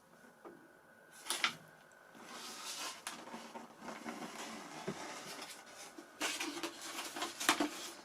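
Handling noise from a foam-and-plastic RC jet model being turned over in the hands: a sharp knock about a second in, then stretches of rustling and light clatter, loudest near the end.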